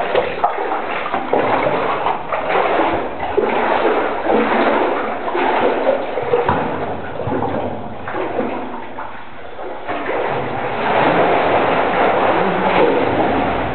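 Water splashing and sloshing from swimming strokes in a flooded rock cave, a continuous run of splashes that grows a little louder near the end.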